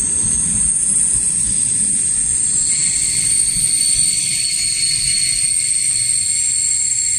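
Passenger train's coaches rolling past and pulling away, the low rumble of the wheels fading over the first couple of seconds. A steady high-pitched whine runs throughout, and a second, lower whine joins about three seconds in.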